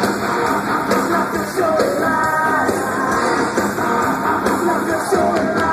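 Live rock band playing with a singer, heard through the PA from far back in an open-air amphitheatre crowd.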